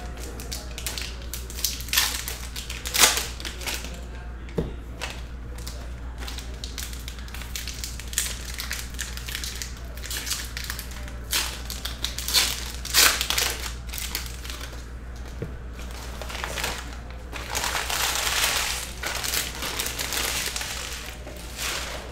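Foil wrappers of Panini Score football hobby packs crinkling as they are torn open and the cards are pulled out. The crinkling comes in irregular bursts, with a longer stretch about three-quarters of the way through, over a steady low hum.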